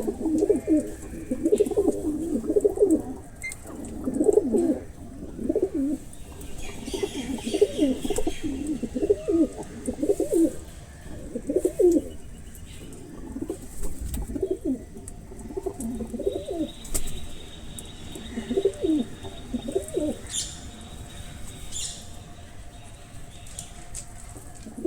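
Birds calling: a long run of short, low calls, about one a second, growing sparser toward the end, with a few faint high chirps.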